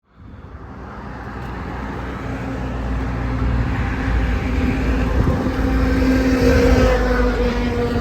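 Motorcycle riding at speed: a steady engine hum under rushing road and wind noise, fading in and growing louder over the first few seconds.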